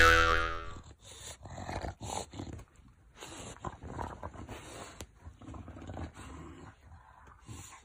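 An English bulldog snuffling as it digs and paws at fleece bedding, the blankets rustling, in irregular spurts. A loud pitched electronic sound effect fades out within the first second.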